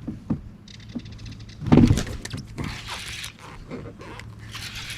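Fishing reel buzzing with a rapid high ratchet as line is pulled out by a fish, among knocks and clicks of rod and gear being handled in the boat, with one loud thump a little under two seconds in.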